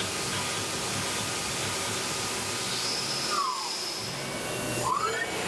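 Tormach 1100 CNC mill peck-drilling with a 1/8-inch twist drill: a steady hiss of the running machine, with a falling whine and then, about a second and a half later, a rising whine as the drill pulls out of the hole and goes back in.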